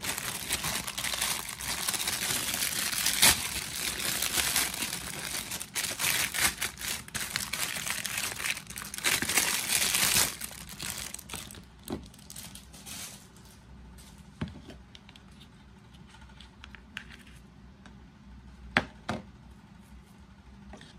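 Clear plastic film crinkling and tearing as a plastic dustpan-and-brush set is unwrapped, dense and loud for about the first ten seconds. After that it is much quieter, with a few separate light clicks and taps as the plastic pieces are handled.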